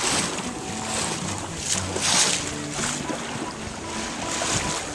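Water washing against the hull of a catboat under sail, mixed with wind buffeting the microphone, coming in uneven surges.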